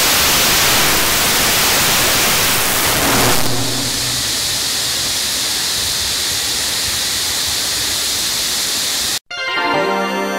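Kerosene–liquid-oxygen 75-tonf-class rocket engine firing on a ground test stand: a loud, steady rushing noise. About three and a half seconds in it turns duller and quieter, then cuts off abruptly near the end, where background music begins.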